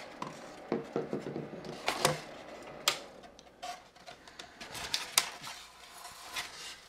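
Hot-wire-cut pieces of foam board insulation being handled and pulled apart, the foam rubbing and scraping, with several sharp clicks and knocks.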